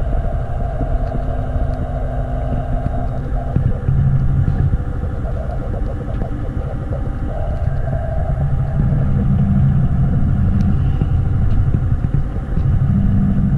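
Ship's engines running, heard from inside the hull as a steady low rumble with a hum.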